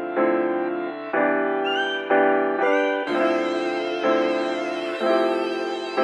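Background music: sustained chords that change about once a second, each struck and then fading, with a brighter, shimmering higher layer joining about halfway through.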